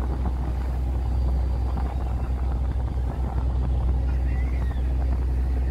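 A fishing boat's engine running steadily under way, a low drone with a rush of noise over it.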